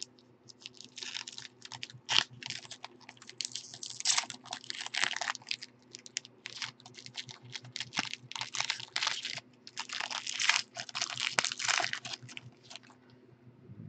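Foil wrapper of a 2018 Topps Tier One baseball card pack being torn and peeled open by hand, with irregular crinkling and crackling in uneven clusters. A faint steady hum runs underneath.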